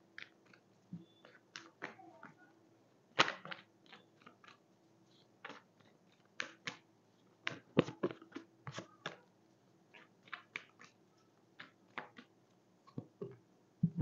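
A deck of tarot cards being shuffled by hand: soft, irregular clicks and flicks of card against card, the sharpest about three seconds in.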